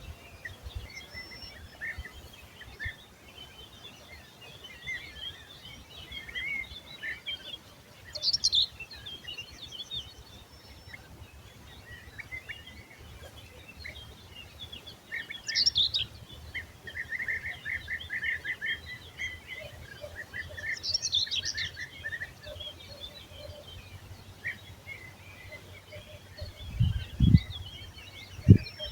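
Several songbirds singing and chirping, with a few louder song phrases and a steady trill among them. Near the end come two low thumps, the loudest sounds.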